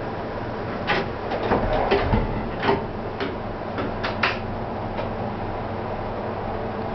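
Cab of a stationary 475-series electric train: a steady hum from its equipment, with a run of about ten sharp clicks and knocks over a few seconds, starting about a second in.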